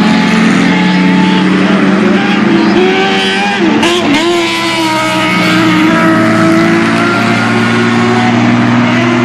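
Racing pickup trucks' engines running loudly on a dirt oval. About four seconds in, the pitch dips and then climbs again as a truck lets off and accelerates.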